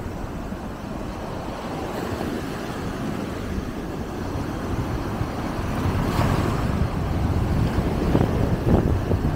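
Small waves breaking and washing foam up a sandy shore, with wind buffeting the microphone as a low rumble. The surf grows louder about six seconds in.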